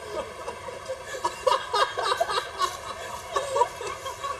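Several people laughing, with chuckles and snickers in short, broken bursts.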